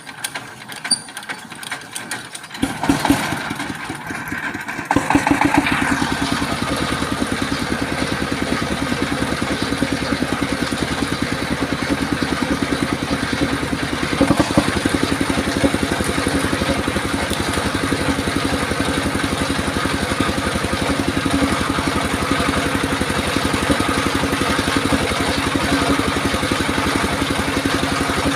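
Engine of a circular-saw sawmill starting up a few seconds in, then running steadily with an even, rapid pulse.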